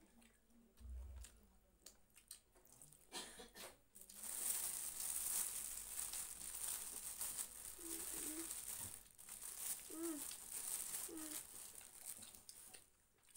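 Children eating grilled sausages off skewers: chewing, biting and mouth smacks, with a louder crinkling rustle from about four to nine seconds in and a few short hums near the end of it.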